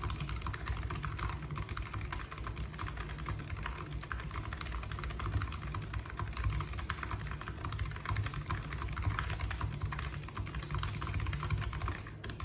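Fast, continuous typing on a Logitech G915 TKL low-profile mechanical keyboard: a dense, irregular run of key clicks.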